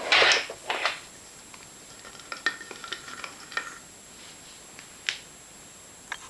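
Rustling for about a second, then scattered light clicks and small knocks of plastic and paper parts being handled, with no motor running. The likely source is a Hoover Constellation vacuum cleaner and its paper dustbag being handled.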